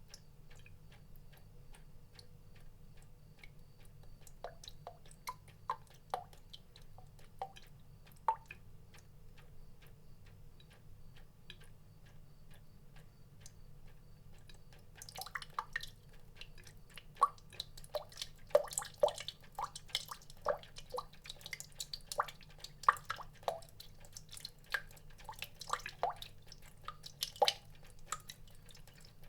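Water drops dripping, each a short pitched plop: sparse and irregular at first, then much denser from about halfway, over a faint low hum.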